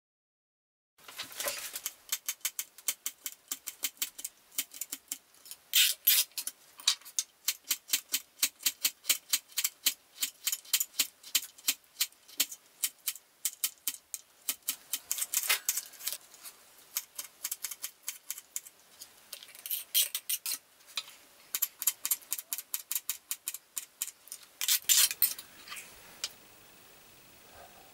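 Kitchen knife chopping boiled potatoes and carrots on a thin cutting board, the blade knocking the board in quick, even strokes about three a second. The chopping starts about a second in and stops shortly before the end.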